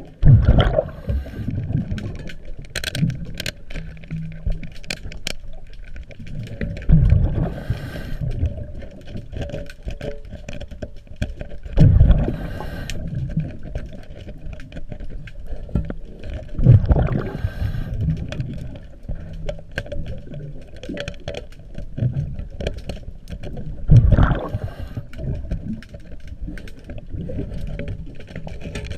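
Underwater breathing through a diver's regulator: a low rumbling gush of exhaled bubbles about every five seconds, with small clicks and scrapes in between.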